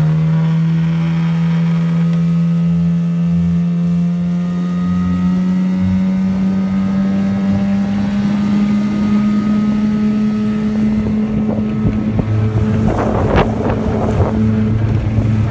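Johnson GT 10 hp two-stroke outboard motor running at planing speed, its tone steady and slowly rising. Wind buffets the microphone with rough crackling in the last few seconds.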